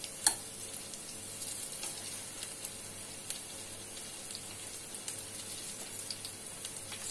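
Vellaiappam batter dumplings deep-frying in oil in a paniyaram pan: a steady, fine crackling sizzle. A single sharp click a quarter second in, as the metal skewer turning them knocks the pan.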